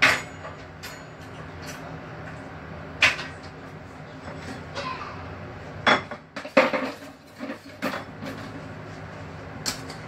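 Kitchen clatter: scattered sharp knocks and clinks of dishes, pans and cupboard doors, the loudest right at the start and several close together about six to eight seconds in, over a steady low hum.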